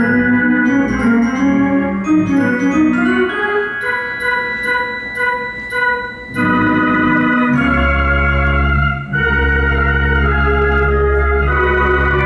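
Theatre organ played live as silent-film accompaniment: a quick melodic passage that grows softer midway, then swells back into full sustained chords with a deep held bass from about eight seconds in, broken by a short gap near nine seconds.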